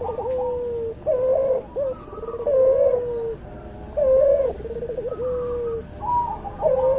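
Cuhu dove, a cross between an albino white puter and a puter pelung, cooing: a string of low, bending coo phrases about one every one and a half seconds.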